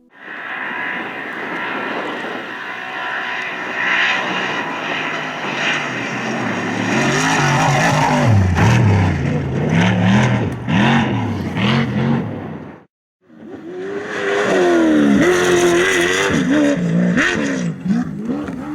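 Desert off-road race vehicle's engine running hard, its pitch rising and falling again and again as it revs. It breaks off suddenly about two-thirds of the way through, and another engine pass follows with the same revving.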